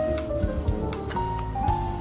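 Background music: a melody of held notes stepping in pitch over a steady beat.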